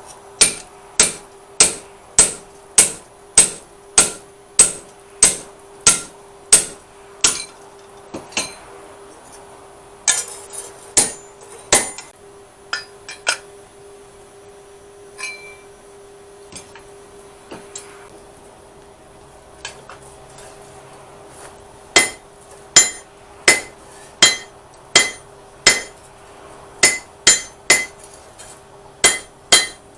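Hand hammer striking hot steel on an anvil while forging a blade, in runs of steady ringing blows at about one and a half to two a second. The hammering thins out and stops for several seconds midway, then resumes at the same pace. A steady hum runs underneath.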